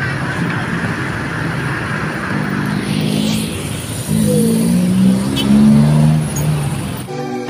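Road and wind noise from riding in traffic across a bridge, with a motorbike engine running close alongside and rising in pitch about four seconds in. Music starts just before the end.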